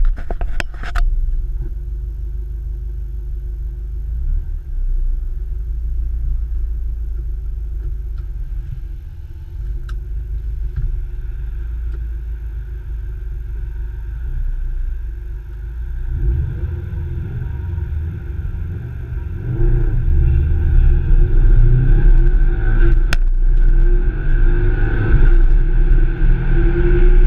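Tuned 2011 Subaru WRX STI's turbocharged flat-four heard from inside the cabin, idling with a steady low rumble, then pulling away a little past halfway, the engine note rising and growing louder. A few clicks sound at the start and one sharp click near the end.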